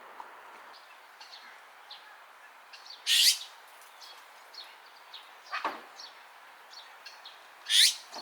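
Wild birds chirping, with two loud, harsh calls about three seconds in and near the end.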